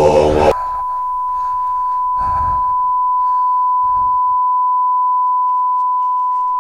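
Chanting cuts off abruptly about half a second in and is replaced by a single steady, pure electronic beep tone at one pitch. The tone holds unchanged, with faint low rumbles beneath it about two and four seconds in.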